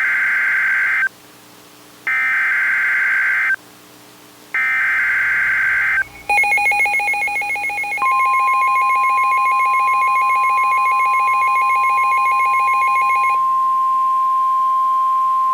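Emergency Alert System SAME header: three short, harsh data bursts about a second apart. About six seconds in, a pulsing buzzy tone starts. Around eight seconds a steady 1050 Hz NOAA Weather Radio warning alarm tone joins it and carries on alone after the pulsing stops near thirteen seconds.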